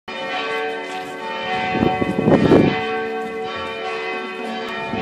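Church bells ringing, many steady overlapping tones held throughout. About two seconds in, a short noisy rumble, the loudest moment, briefly covers them.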